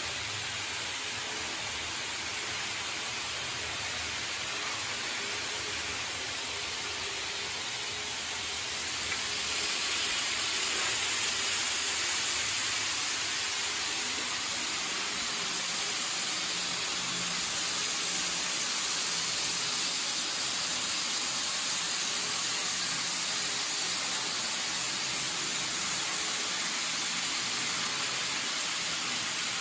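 Kato N scale model trains running on their track: a steady whirring hiss with a faint hum of small motors, a little louder from about nine seconds in.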